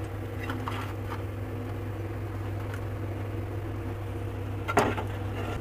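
Steady low electrical hum of a motor, with a few light clicks of kitchen utensils and one sharper knock near the end.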